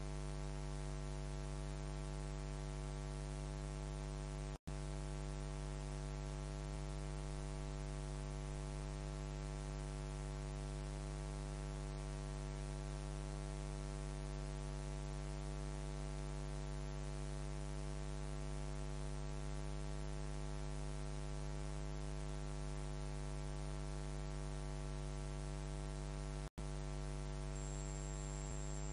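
Steady electrical mains hum with hiss in the audio feed, cutting out for an instant twice.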